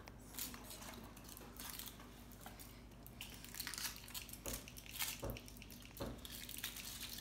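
Foil wrapper being peeled by hand off a Kinder Surprise chocolate egg: faint, irregular crinkling and rustling with small clicks.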